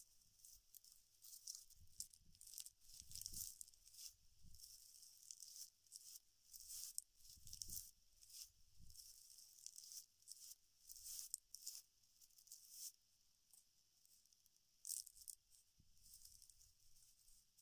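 Faint, irregular dry rustling and crackling of palm-fibre sheets being handled, folded and rolled by hand.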